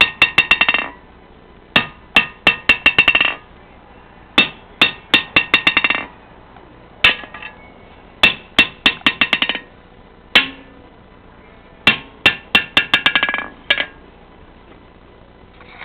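Sledgehammer dropped onto the granite face of a homemade rock anvil banded with 1/4-inch steel, ringing with sharp metallic clinks. Each blow is followed by a quick run of bounces that come faster and faster as the hammer rebounds off the face, repeated about seven times and stopping shortly before the end. The lively bouncing shows the anvil's good rebound.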